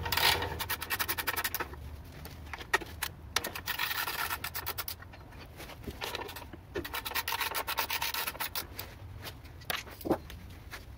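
Ratchet wrench clicking in several quick runs while the bolts of a small engine's recoil starter housing are being unscrewed.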